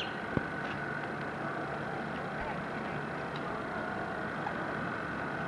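Radio-controlled model boat's motor running with a steady high whine over a broad background rumble, with a sharp click about half a second in.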